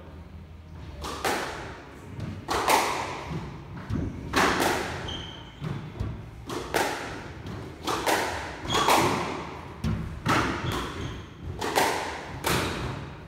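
Squash rally: the ball hit by rackets and striking the walls of the court, sharp hits about every half second to second and a half, each with an echoing tail. A few short squeaks, typical of shoes on a wooden court floor, come between the hits.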